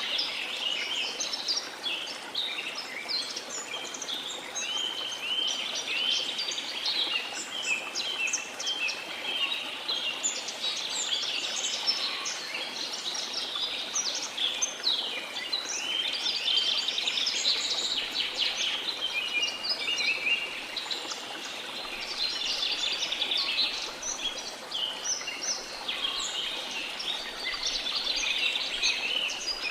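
Dense chorus of many birds chirping and calling without pause, over the steady rush of a flowing river.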